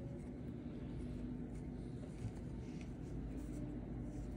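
Steady low background hum with a few faint scratches of a steel needle and wool yarn being worked through a rug's fringe edge, and one soft knock about two seconds in.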